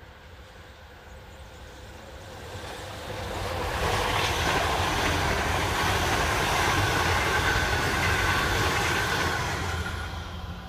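Metro Trains Melbourne electric suburban train passing at speed. Its rumble and rail noise build up over the first few seconds and stay loud, with a steady whine, for about six seconds, then fade as the train leaves.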